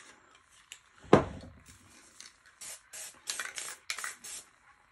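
Aerosol spray-paint can sprayed in a quick series of short hisses in the second half, as the nozzle is tapped to speckle paint onto the painting. A single sharp knock about a second in is the loudest sound.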